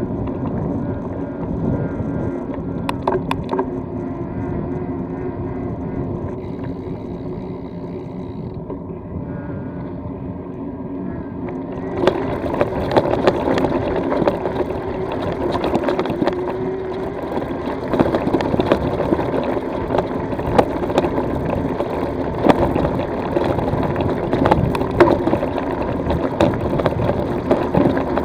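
E-bike rolling along a tarmac lane with a steady hum. About twelve seconds in, the tyres run onto a loose gravel track, and the sound turns into a constant crunch and rattle of stones with frequent sharp clatters.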